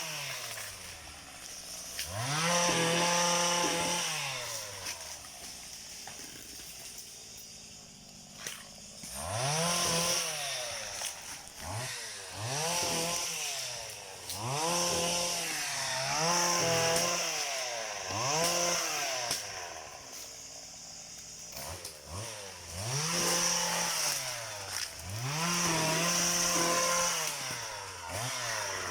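Small two-stroke engine of a motorised oil palm pole cutter (cantas) revved up and down about nine times as fronds are cut, dropping back to a lower idle between bursts, with a longer idle stretch in the first third.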